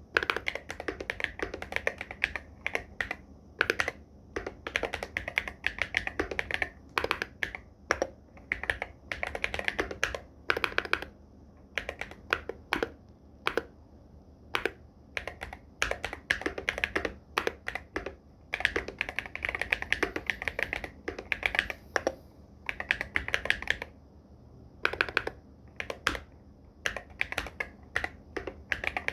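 Irok MG75 Pro mechanical keyboard with Silver Purple Star switches and Loga x Wongnai keycaps being typed on quickly: rapid runs of keystroke clicks and clacks, broken by a few short pauses.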